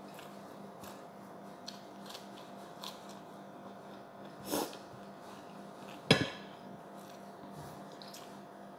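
Quiet eating at a table over a steady background hum: faint small clicks as leafy greens are picked apart by hand, a short rustle about four and a half seconds in, and a single sharp clink of a dish, the loudest sound, about six seconds in.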